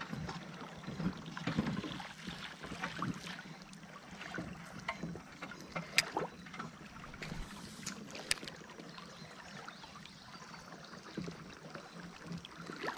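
River current rushing over a shallow riffle around a drifting raft, a steady watery rush. A sharp click about six seconds in and another just after eight seconds stand out over it.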